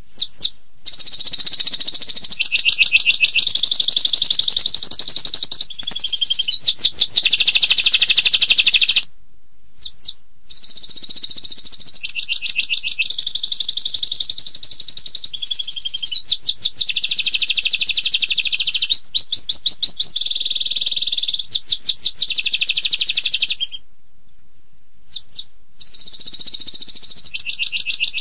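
Domestic canary singing long, rapid-fire trilled phrases of fast repeated notes, one roll running straight into the next. It breaks off twice for a second or two, about nine seconds in and again near the end.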